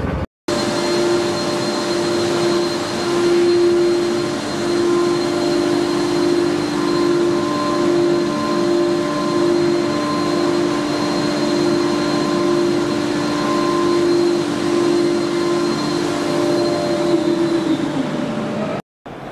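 Vacuum membrane press running with a steady whining hum, its vacuum pump motor then winding down with falling pitch near the end.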